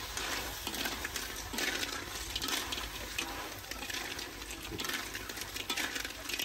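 Small hard objects clattering and clinking repeatedly and irregularly.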